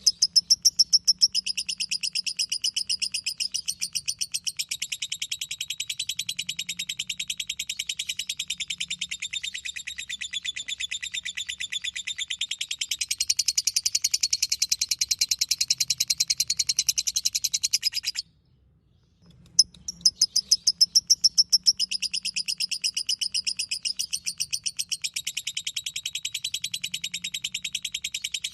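Lovebird singing 'ngekek': a long, fast, high chattering trill of rapidly repeated notes. It breaks off suddenly about 18 seconds in and starts again a second later.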